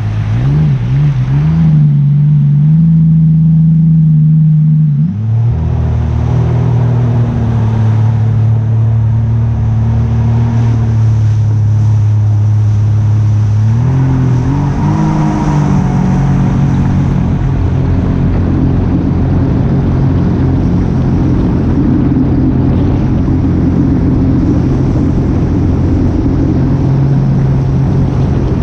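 A vehicle engine running steadily. Its pitch drops about five seconds in and climbs again around fourteen seconds, then holds.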